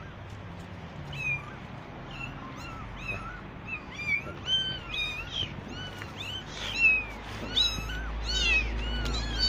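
A litter of very young kittens abandoned by their mother mewing over and over: short, high-pitched mews, a few at first, then coming faster and overlapping from several kittens at once in the second half.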